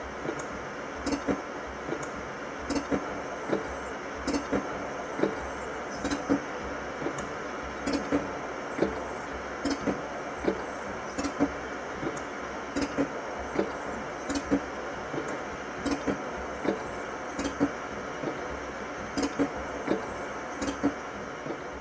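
Automated folding-test rigs repeatedly folding Galaxy Z Fold3 and Flip3 phones open and shut. The rigs run with a steady machine hum, and sharp clacks come about once or twice a second at slightly uneven spacing as the several fixtures fold.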